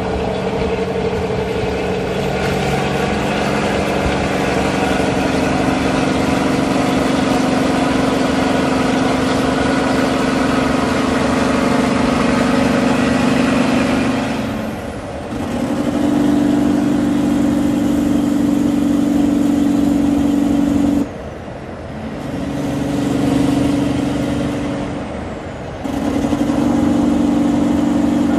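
Peterbilt semi truck's diesel engine sounding loudly through its tall exhaust stacks as it runs alongside, a steady deep drone that drops away briefly three times and comes back, sharply at the second and third breaks.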